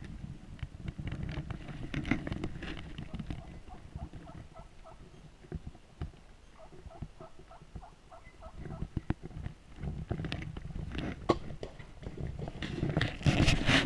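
Wild turkeys calling: a run of short, evenly spaced yelping notes in the middle, over a low wind rumble. Near the end, sharp clicks and rustling grow louder.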